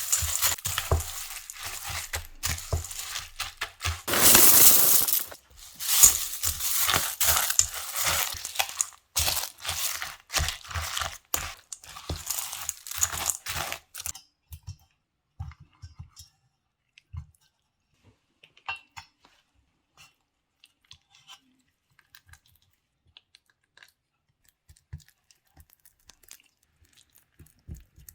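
Food-prep sounds: small hard pieces clinking and rattling against a glass, with crunching and crinkling, loudest about four seconds in. After about fourteen seconds only a few scattered light taps and clicks remain.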